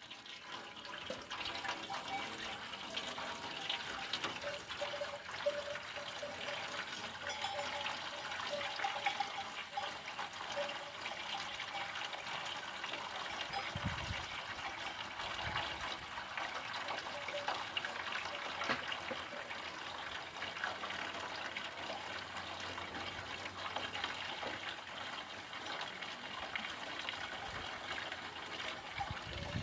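Water from an outdoor tap running through a metal pipe into an aluminium basin of water, a steady splashing pour. The flow starts abruptly as the tap is opened.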